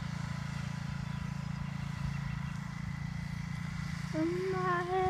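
Riding lawn mower engine running steadily at a constant speed, driving a homemade mosquito fogger heated by its muffler. About four seconds in, a drawn-out pitched call or hum joins it.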